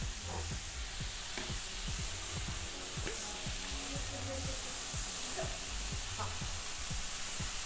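Sliced bell peppers and carrots sizzling as they sauté in oil in a metal kadhai, a steady hiss with scattered light clicks and scrapes of the metal spatula against the pan.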